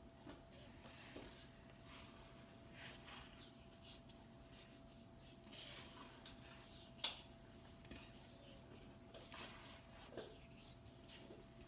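Faint scraping and rubbing of a wooden spatula stirring a stiff oat-flour dough in a wooden bowl, with one sharp knock about seven seconds in, over a faint steady hum.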